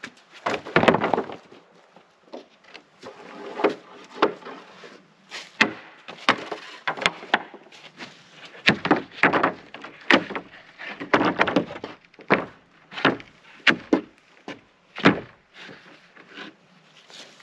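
Rough-sawn wooden boards knocking and clattering as they are pulled off a stack and laid down on other boards: a string of irregular sharp wooden knocks with scraping in between.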